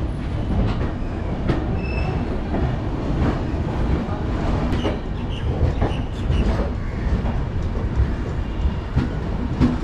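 Passenger train pulling out of a station, heard from the open doorway of a coach: a steady rumble of wheels on the rails with irregular clicks and knocks as it gathers speed.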